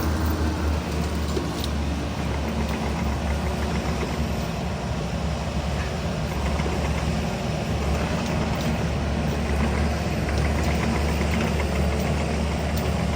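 Yanmar ViO55 mini excavator's diesel engine running steadily, with a few faint sharp clicks over the drone.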